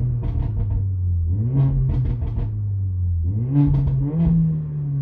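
Mercedes-AMG CLA45's turbocharged 2.0-litre four-cylinder revved from the driver's seat through a catless downpipe: the engine note rises in three steps, about a second and a half and two seconds apart, each with a run of crackles and pops. It starts to fall back toward idle near the end.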